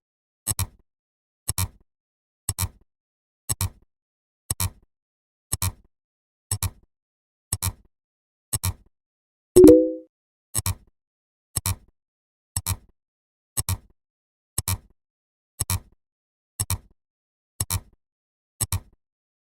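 Electronic sound effects: a short sharp click about once a second, with a louder, brief low chord-like tone about halfway through.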